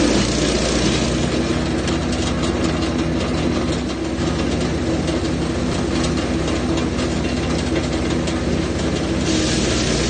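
Jansen GTS-1500E wood chipper running steadily. It is chewing eucalyptus branches at the start and again from near the end, when a louder, harsher rush of chipping rises over the machine's running sound. In between it runs without load.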